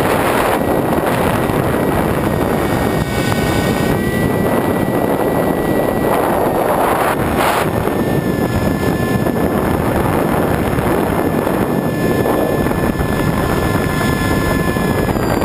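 Wind rushing over the onboard camera's microphone of an EPP-FPV foam model plane in flight, with the thin whine of its electric motor and propeller underneath, shifting in pitch a few times as the throttle changes.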